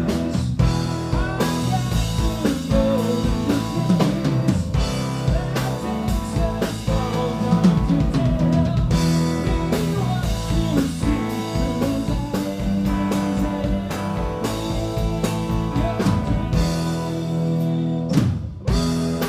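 Live rock band playing: Telecaster-style electric guitar, electric bass and drum kit, with a man singing lead. The music dips briefly about a second before the end.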